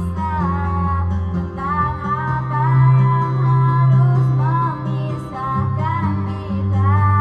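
A woman singing through a handheld microphone over recorded backing music with a held bass line that changes note a few times.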